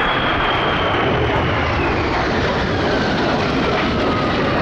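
Jet engines of an F-35B Lightning II and an EAV-8B Harrier II flying past in formation: a loud, steady jet noise with a high whine that falls slowly in pitch as they pass.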